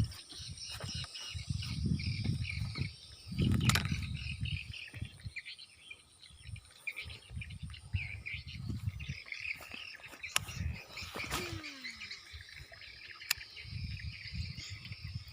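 Countryside ambience: birds and insects chirping continuously, with irregular low rumbles and a few sharp clicks.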